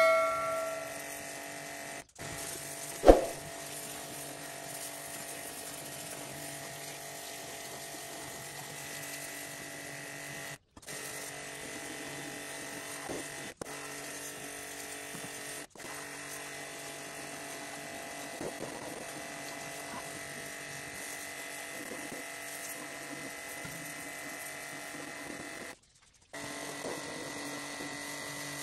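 Small electric pressure washer running steadily, its motor and pump giving a constant buzzing hum while the jet washes a tractor's rear axle housing. One sharp knock sounds about three seconds in.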